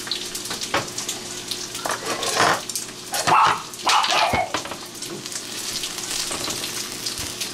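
A dog barking a few short times, about two and a half, three and a half and four seconds in, over a faint steady hum.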